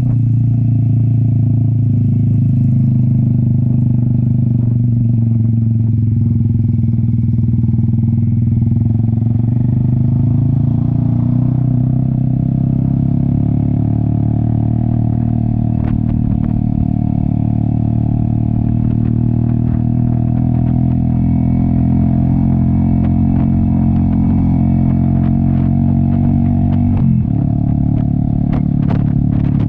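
Cafe 400 motorcycle with an SC Project aftermarket exhaust running steadily under load on an uphill ride; the engine note briefly drops and picks up again near the end.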